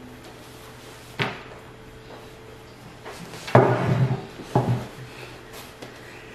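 King crab leg shells being cracked open by hand. There is a sharp crack about a second in, a longer crunching break about three and a half seconds in, and another crack right after it.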